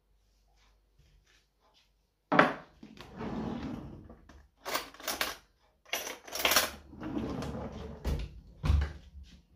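Kitchen clatter: a sharp knock about two seconds in, then rustling and a run of clicks and knocks as crockery such as a ceramic mug is handled on a counter.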